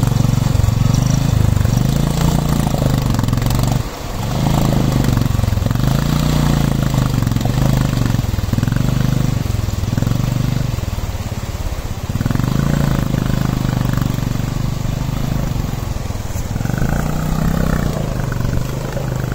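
Motorcycle engine revving, swelling and easing off every couple of seconds as the bike rides through a shallow, rocky river crossing, with water rushing and splashing around it.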